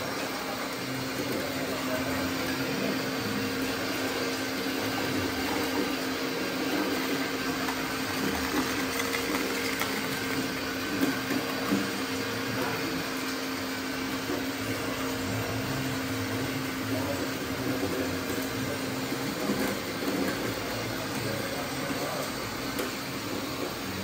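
Small electric motors of RC construction machines running steadily, a constant hum over a whirring haze, with the hum fading near the end.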